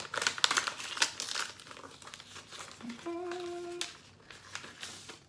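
Paper crinkling and rustling as a paper envelope is opened and the cards inside are handled, loudest in the first two seconds. A short hum from a woman's voice a little after halfway.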